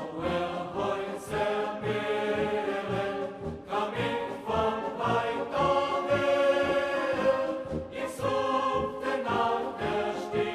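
Background music: choir voices singing held chords over a steady low beat.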